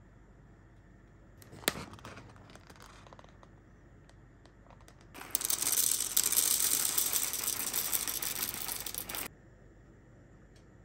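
Foil zip-lock coffee bag pulled open with a sharp snap and some crinkling about two seconds in. Then about four seconds of roasted coffee beans pouring and rattling into a wooden bowl, which stops suddenly.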